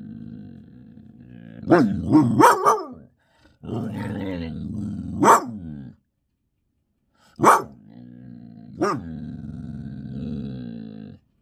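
Dog growling in long low rumbles broken by sharp barks: a quick run of about four barks some two seconds in, then single barks about five, seven and a half and nine seconds in. The dog is agitated and barking at something outside.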